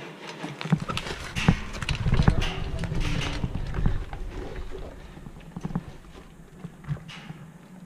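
Footsteps going down brick-and-concrete stairs: irregular thuds and scuffs, densest over the first few seconds, with a low rumble of the wearer's movement on the body-worn camera, then a few scattered steps and knocks.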